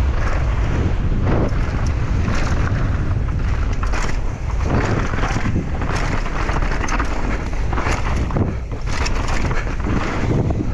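Wind rushing over a helmet- or bike-mounted GoPro microphone during a fast downhill mountain-bike descent, with a dense clatter of knocks and rattles from the bike over rough ground.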